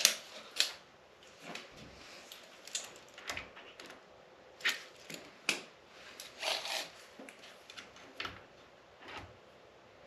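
Scattered light clicks, taps and rustles of hand handling, about a dozen spread unevenly, with a slightly longer rustle about six and a half seconds in, as the position of a clamped cabinet-hardware drilling jig is checked with a measure.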